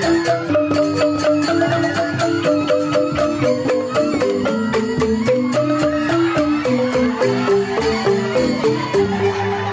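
Balinese joged bumbung gamelan: bamboo-tube xylophones (grantang) playing fast, interlocking melodic patterns, with a bamboo suling flute and drum underneath, going steadily on with no break.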